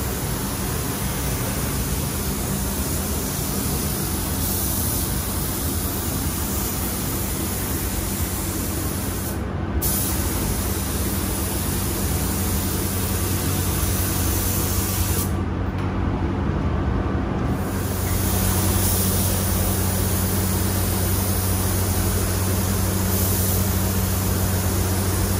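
Gravity-feed air spray gun hissing steadily as sealer is sprayed onto a truck cap, over a steady low hum. The spray hiss cuts out briefly about ten seconds in, and again for about two seconds around sixteen seconds in, as the trigger is let off.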